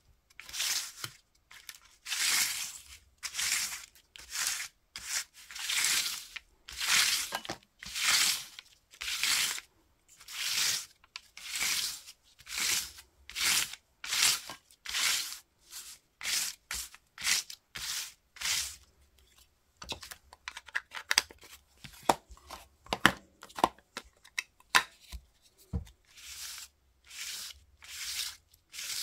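Ink pad rubbed in repeated strokes across crumpled brown paper-bag paper, making a papery scrape at each pass, about one stroke a second. In the second half there are a few sharp clicks and knocks among the strokes.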